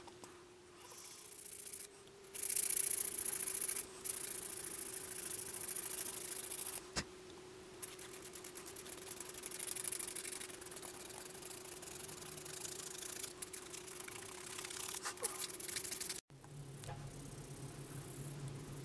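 A carved wooden spoon being scraped and sanded by hand, with irregular stretches of raspy rubbing strokes on the wood over a faint steady hum. After a cut near the end only a quieter low hum is left.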